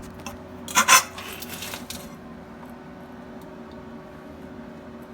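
Sharp metallic clanks about a second in, trailing into a brief rattling clatter, over a steady low hum.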